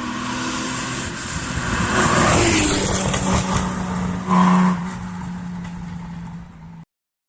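Historic Porsche 911 rally car's air-cooled flat-six running hard as it goes by close, growing louder to a peak in the middle with a sharp surge a little past halfway, then cutting off abruptly near the end.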